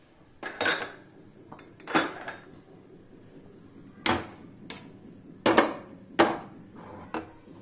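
Irregular sharp knocks and clinks, about eight of them spread across the few seconds, the loudest about two, four, five and a half and six seconds in.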